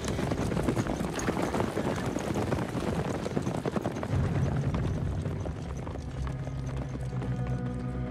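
Hooves of several horses walking, an irregular, overlapping clatter of clip-clops. A low, steady musical drone comes in about halfway and builds toward the end.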